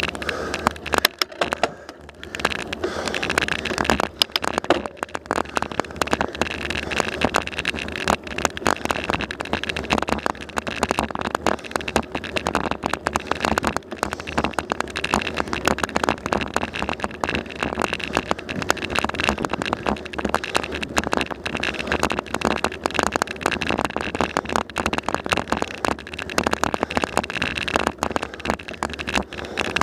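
Bicycle rolling over rough asphalt, picked up through a bike-mounted camera: a dense, continuous rattling crackle from road vibration.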